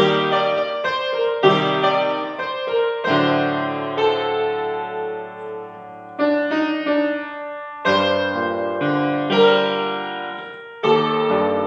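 Grand piano played in full chords, a new chord struck every second or two, some held and left to fade before the next.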